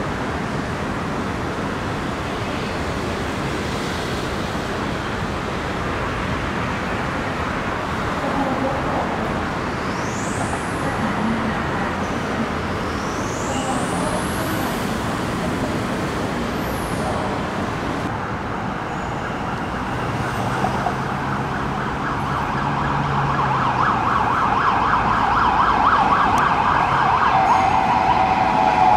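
Steady trackside din of traffic and rail noise, with a few high whistling glides around the middle. A loud, rapid buzzing drone builds over the last few seconds.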